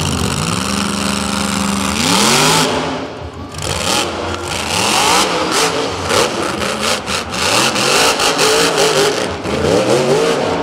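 Monster truck engine revving hard in repeated rising and falling bursts, very loud at full throttle about two seconds in. This is followed by a run of bangs and scrapes as the truck tips over and lands on its roof, the engine still revving near the end.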